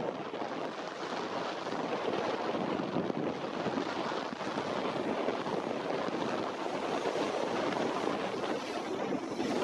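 Wind buffeting the microphone: a steady, rough rushing noise.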